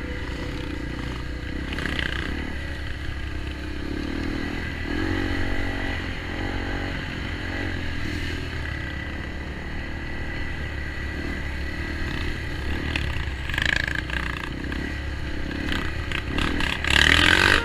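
Enduro motorcycle engine running while being ridden, its pitch shifting up and down, with a louder rush of noise near the end.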